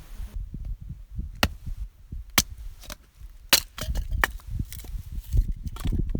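Firewood being chopped or split: about five sharp wooden knocks spread over a few seconds, with irregular low thuds in between.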